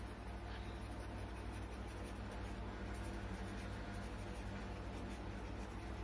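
Felt-tip pen writing on a sheet of paper in a run of short, faint strokes, over a steady low electrical hum.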